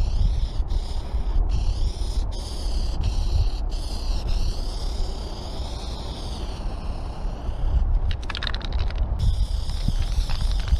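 Aerosol spray paint can hissing in long sprays with short breaks as the nozzle is released, the hiss wavering as the can sweeps across the surface. About eight seconds in, the spraying stops for a quick burst of rattling, the mixing ball shaken inside the can, then the spray resumes. A low wind rumble on the microphone runs underneath.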